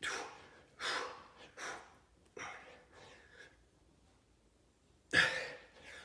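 A man breathing hard from exertion, with sharp, forceful exhalations: four quick ones about a second apart at the start, then a lull and one louder blow near the end.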